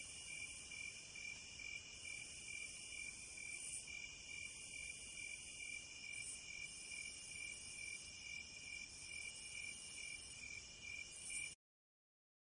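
Faint, steady chorus of crickets chirping at night, a high pulsing trill that cuts off suddenly near the end.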